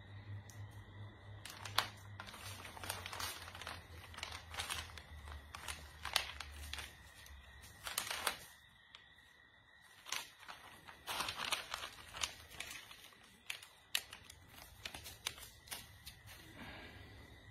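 Irregular crinkling and rustling of something being handled, in short clusters with a pause about halfway through, over a faint steady high-pitched tone.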